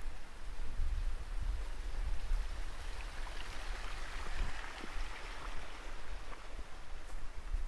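Wind buffeting the microphone, over a steady rushing hiss that swells near the middle.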